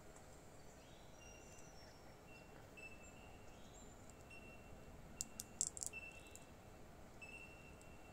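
Near silence broken by a quick cluster of sharp clicks about five seconds in, metal tweezers working at the LCD connector of an opened iPod Nano 4th gen. Faint short high chirps repeat in the background.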